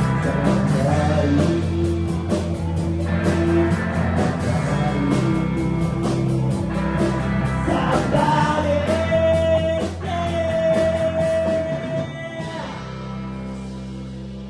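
A live rock trio of electric guitar with vocals, bass and drums playing the closing section of a song, with a long held note a little past the middle. Near the end the drums stop and a final chord rings out and fades.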